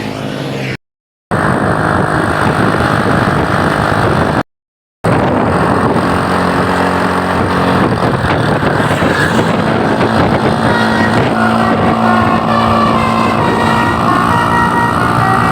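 Vehicles moving at speed on the road: dense engine and road noise with a low steady hum. The sound cuts out completely twice, about a second in and again about five seconds in.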